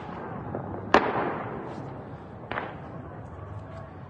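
Distant gunshots over a city, echoing: one loud shot about a second in with a long rolling echo, then a fainter shot about a second and a half later.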